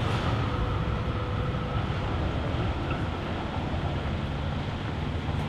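Steady rumble of city traffic and a suburban electric train running over a railway viaduct, with a faint whine that dies away about two seconds in.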